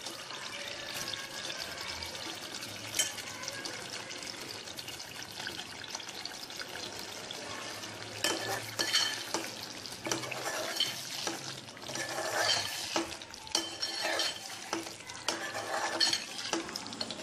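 Spiced masala gravy sizzling in a metal pot with mutton koftas cooking in it, while a steel spoon scrapes and clinks against the pot as it is stirred. The stirring gets busier about halfway through.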